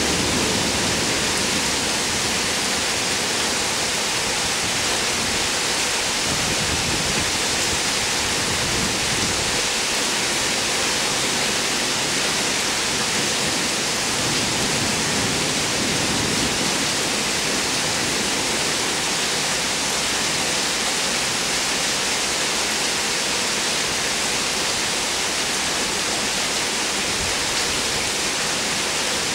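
Heavy thunderstorm rain pouring down steadily, a dense, even hiss with no breaks.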